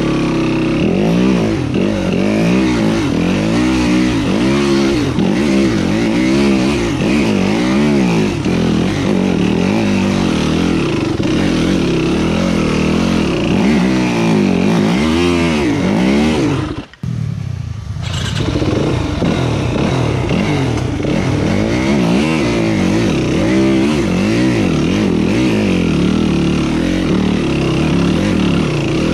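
Dirt bike engine being ridden hard on a trail, its pitch rising and falling about once a second as the throttle is opened and shut. The sound drops out briefly about seventeen seconds in.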